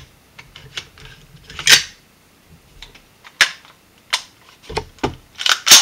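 Metal parts of an AR-15 rifle clicking and clacking as it is handled and reassembled: a string of sharp clacks, the loudest about two seconds in and at the very end, with a couple of duller knocks just before the end.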